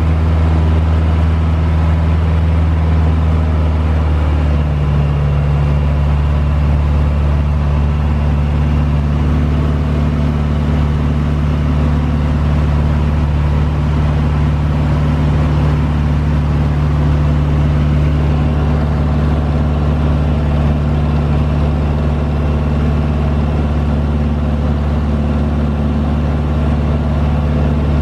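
Aeronca 11BC Chief light airplane's engine and propeller droning steadily in cruise, heard from inside the cabin, with a slight shift in pitch about four seconds in.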